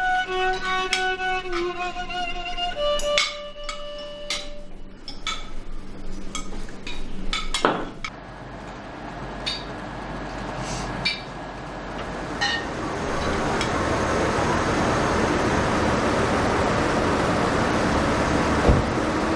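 A slow violin melody in the soundtrack music fades out a few seconds in. Then come scattered clinks of glass and cutlery on plates. From about two-thirds of the way through, a steady rush of traffic noise sets in, with one low thump near the end.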